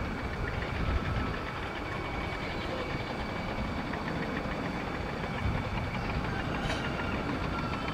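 Steady distant rumble of a Dassault Falcon 7X's jet engines as the business jet climbs away after takeoff.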